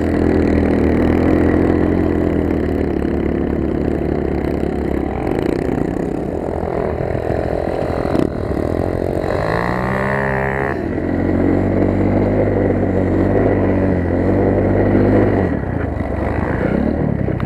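A Motoland XR 250 enduro motorcycle's single-cylinder four-stroke engine running under way, its note rising and falling with the throttle. About ten seconds in, a second dirt bike passes close, its note rising and then dropping away.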